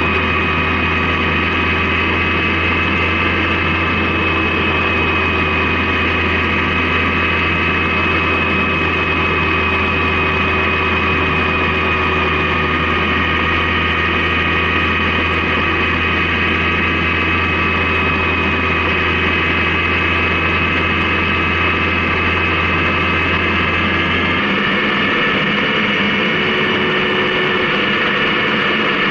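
Honda CB750K's inline-four engine running steadily at cruise, with a constant hum and rushing noise; its pitch and low drone shift slightly near the end.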